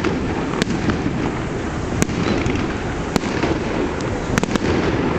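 Aerial fireworks shells bursting overhead: about six sharp bangs spaced irregularly, three of them in quick succession near the end, over steady background noise.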